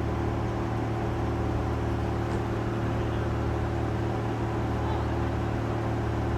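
Car engine idling, a steady, unchanging low drone.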